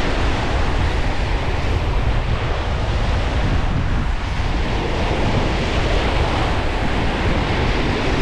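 Strong wind buffeting the microphone: a steady, loud, low rumble with no break.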